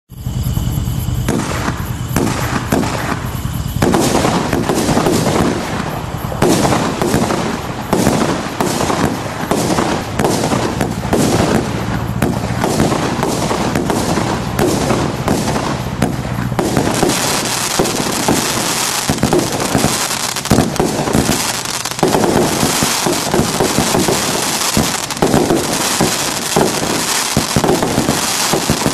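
Starburst firework firing: a rapid, unbroken string of sharp pops and bangs, several a second. From about halfway it becomes denser and hissier.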